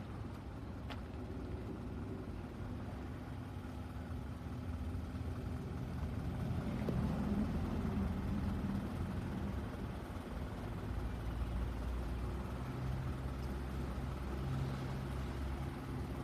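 Isuzu Elf dump truck's engine running with a steady low drone; it gets louder about six seconds in, and its tone shifts again about eleven seconds in.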